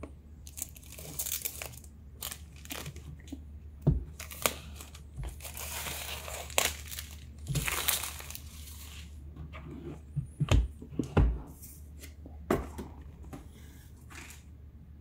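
Clear plastic film being peeled off a cardboard laptop box and bunched up, crinkling and tearing, densest in the middle. Several dull knocks come from the box being handled on the desk.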